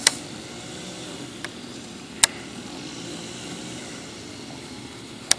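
Sharp clicks from a baitcasting reel being handled while a backlash is worked loose: three loud ones at the start, about two seconds in and near the end, and a fainter one in between, over a steady low background rumble.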